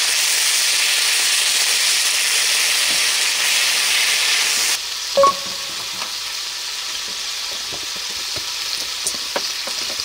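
Sliced meat sizzling hard in a stainless frying pan just after a splash of sake, stirred with chopsticks. The sizzle cuts off abruptly about five seconds in, giving way to quieter light crackling from burning charcoal, with a single metallic clink.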